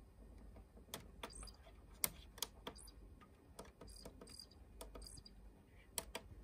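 A dozen or so sharp, irregularly spaced clicks and taps, faint, over a low hum.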